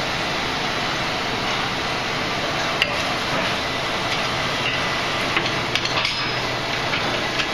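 Coal forge running with a steady rush of blown air, and a few light metallic clinks as steel stock and tongs are shifted in the fire, several of them about two-thirds of the way through.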